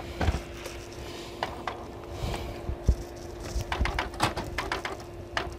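Canon G1020 inkjet printer running its power-on initialization: irregular mechanical clicks and knocks from the carriage and gear train over a steady faint hum, with a quick run of clicks about four seconds in.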